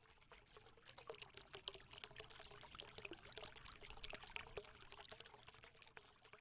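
Faint trickling water, a dense patter of tiny ticks that swells in the middle and fades out near the end.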